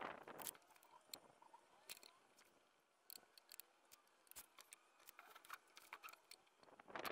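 Mostly quiet, with scattered faint clicks and taps of pallet-wood boards being handled and set against a wooden block. A louder burst of noise comes in the first half second and again shortly before the end.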